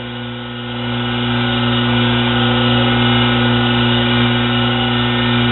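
Small lathe driven by a treadmill motor running with a steady electric hum, growing louder about a second in and then holding level.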